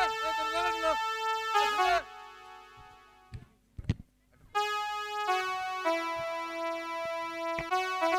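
Electronic keyboard playing slow, sustained synth notes and chords. The playing stops about two seconds in, leaving a short lull with a few faint knocks, then picks up again with a slow held-note melody halfway through.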